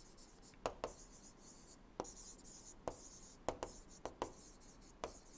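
Faint handwriting on a digital tablet with a stylus: a series of sharp taps and light scratching as the pen tip strikes and drags across the writing surface.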